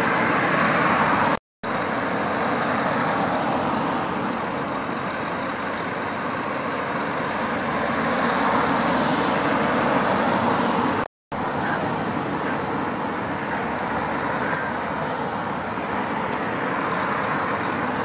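Road traffic noise: cars passing close by over the steady hum of a Scania timber lorry's engine running while its crane works. The sound cuts out completely twice, briefly, about a second and a half in and again about eleven seconds in.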